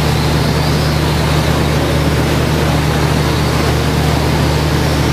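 Electric RC short-course trucks running on an indoor dirt track, a steady hiss with a faint high motor whine, over a constant low hum from the hall.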